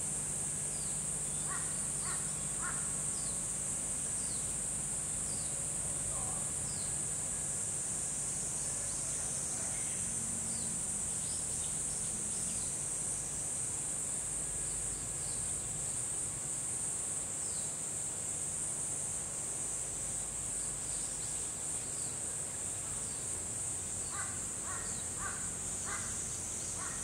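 Steady high-pitched buzz of insects, with a crow cawing three times about two seconds in and again in a run of caws near the end. Small birds give short, high, falling notes here and there.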